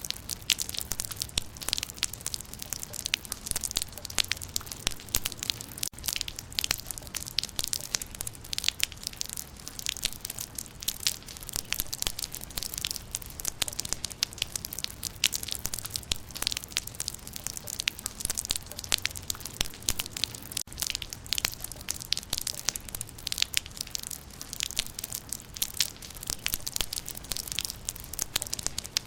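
Rain falling on leaves: a dense, irregular patter of drops ticking on foliage over a steady low rumble.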